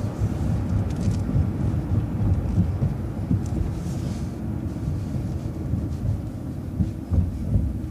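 City transit bus running, a steady low rumble of engine and road, with a faint hiss about four seconds in.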